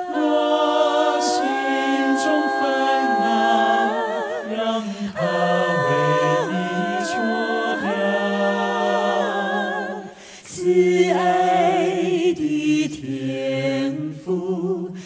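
Singing of a Mandarin Christian gospel hymn: long held notes with vibrato, and a short break about ten seconds in before the next line.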